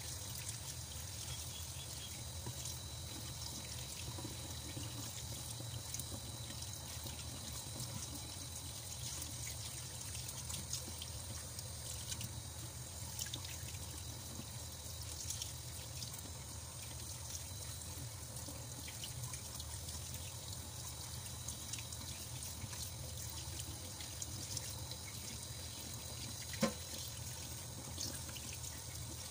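Thin stream of tap water running into a stainless steel sink and splashing over sea cucumbers being scraped clean with a knife, with faint ticks throughout. A single sharp knock near the end.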